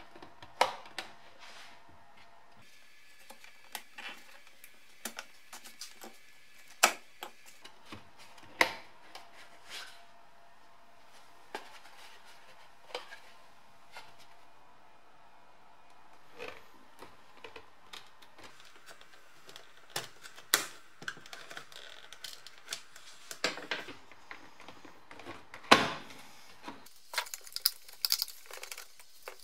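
Plastic dashboard air vents being pried out with a screwdriver: irregular sharp clicks, taps and scrapes of plastic and metal, with short pauses between, and a busier run of clicks in the last few seconds.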